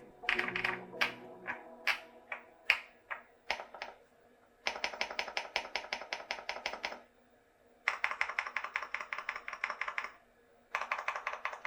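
Typing on a stock VTER Galaxy80 mechanical keyboard fitted with HMX KD200 film linear switches and thick PBT Cherry-profile keycaps. It starts with scattered single keystrokes, then comes three bursts of fast typing separated by short pauses.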